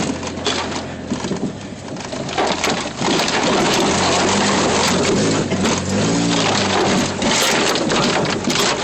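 Branches and brush scraping and crackling against a vehicle's windshield and body as it pushes through overgrowth, over the engine's low drone. The scraping turns loud and dense about three seconds in.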